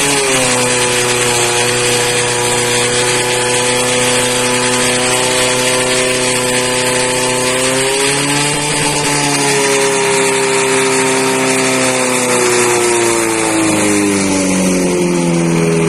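Portable fire pump's engine running hard and steady while it pumps water out to the hose lines. Its note shifts in pitch about halfway through and again near the end.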